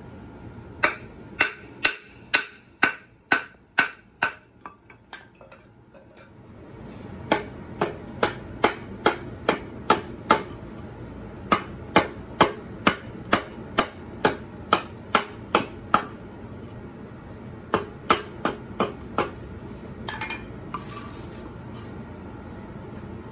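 Sharp wooden knocks about two a second as a wooden baton drives a knife blade down through a pine spoon blank, fading out after a few seconds. After a short pause, a Husqvarna carpenter's axe hews the pine blank in quick strokes, about two a second, in two runs.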